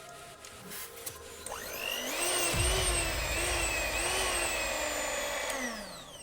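American Micronic electric hand mixer switched on with its beaters fitted: the motor spins up with a rising whine about a second and a half in, runs with a slightly wavering pitch, then winds down with a falling whine near the end.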